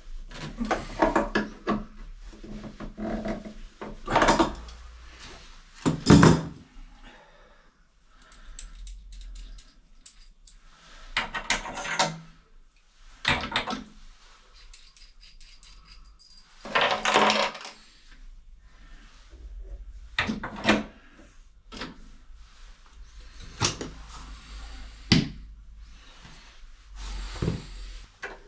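Irregular clinks, knocks and clatter of small hard objects as plumbing tools and fittings are handled, with a few brief high metallic rings.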